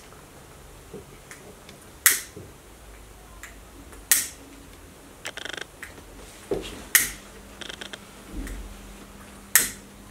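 A hand-held lighter clicking as it is struck again and again to light candles: four sharp clicks a few seconds apart, with short runs of quicker, softer clicks between them.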